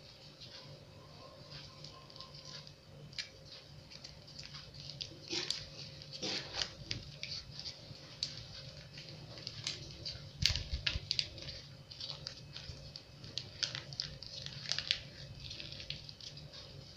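Plastic sachets of sweetened condensed milk crinkling as they are handled, squeezed and torn open: scattered quiet rustles and crackles, with one firmer knock about ten seconds in.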